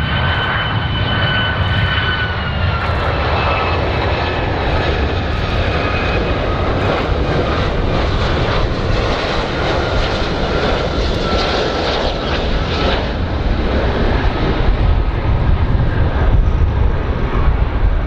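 Boeing 757 jet engines running on a low landing approach: a steady deep rumble with a high fan whine that slowly falls in pitch over the first dozen seconds or so.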